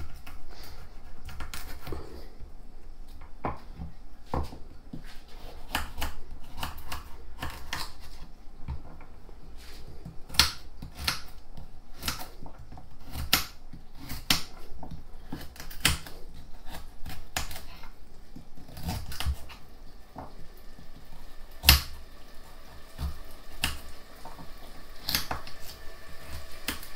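Knife dicing a carrot on a stone cutting board: an irregular run of sharp taps as the blade strikes the stone, with one louder knock a little past the middle.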